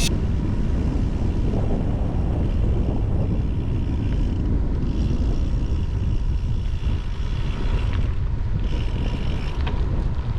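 Wind buffeting the microphone with a steady low rumble, from riding a bicycle along a gravel road.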